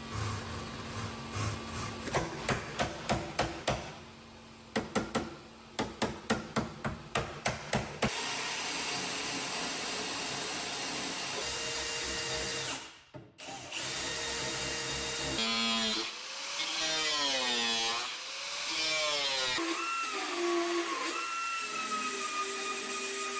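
Power tool working in rapid short bursts, about four a second, for several seconds, then running steadily. In the last part, sliding, warbling tones and steady tones like music take over.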